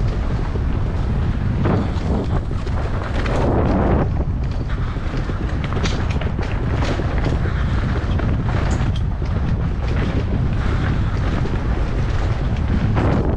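Wind rushing over a helmet-mounted GoPro's microphone during a fast mountain-bike descent on a dirt trail. Scattered knocks and rattles come from the bike and tyres going over bumps.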